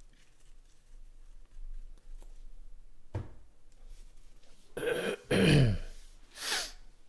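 A man clearing his throat several times in the second half, the loudest a little past the middle, over soft rustling of trading cards being handled.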